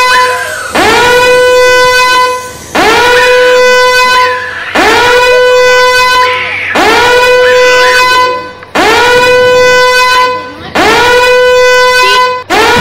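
Loud horn blasts repeated about once every two seconds, each swooping up in pitch at the start and then held on one steady note for about a second and a half before cutting off.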